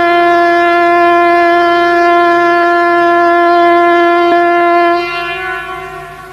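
A loud, steady alert tone with a buzzy, horn-like sound, held on one pitch, that starts to fade and thin out about five seconds in.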